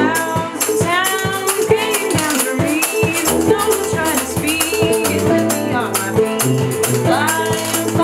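A small acoustic band playing a song: a woman singing lead over banjo and acoustic guitar, with a tuba playing the bass line and a washboard and snare drum keeping a steady beat.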